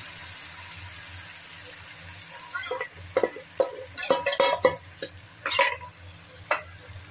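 Sizzling in a hot wok as a watery masala slurry hits the pan, the hiss slowly dying away. From about two and a half seconds in, a metal spoon scrapes and clinks several times against the steel bowl and the wok.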